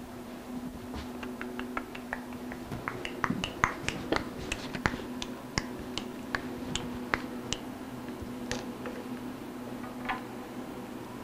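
Scattered light clicks and clacks of a small hand clamp and tools being picked up and handled, about a dozen sharp ticks in the first two-thirds and fewer toward the end, over a steady low hum.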